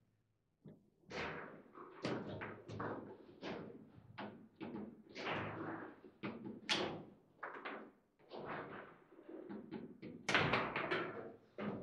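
Table football in play: the ball and rods knock and clack against the players and table in quick, irregular strikes. They start about half a second in, and the loudest flurry comes near the end.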